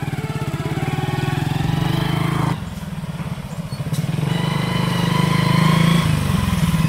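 Motorcycle engine running as the bike rides along. The revs ease off about two and a half seconds in, then pick up again.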